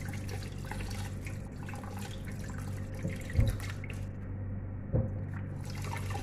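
Tap water running and splashing into a metal basin of whole fish in a stainless-steel sink as hands rinse them. Two dull thumps come about three and a half and five seconds in, over a faint steady low hum.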